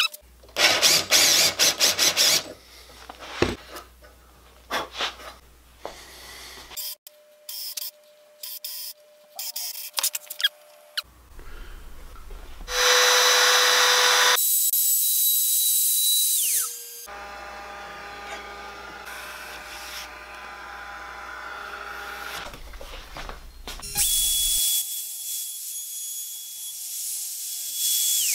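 A cordless drill boring into a wooden block in short bursts, then a compact trim router running in stretches, with a high steady whine, as it cuts a channel in a maple guitar-neck blank.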